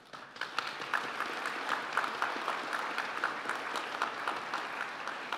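An audience applauding steadily, many hands clapping.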